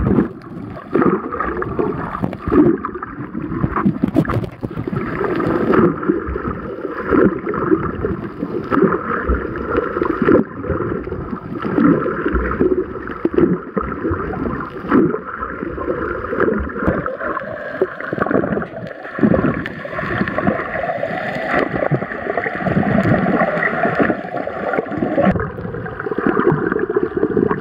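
Water splashing and gurgling around a waterproof action camera as a swimmer swims freestyle, the camera dipping in and out of the sea.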